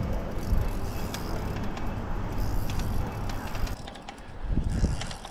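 Fishing reel being cranked to bring in a hooked fish, a quick run of fine mechanical clicks over a low rumble of wind and handling.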